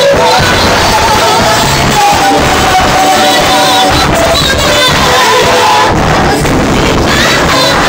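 Live gospel choir music: a woman sings lead into a microphone over the choir and accompaniment, loud and unbroken.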